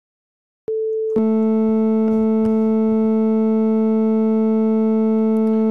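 Synthesized tones from the sema engine in a web browser: a pure 440 Hz sine tone starts about two-thirds of a second in, and half a second later a 220 Hz triangle wave an octave below joins it. The two then hold steady together as one buzzy, unchanging sound, with a few faint clicks over it.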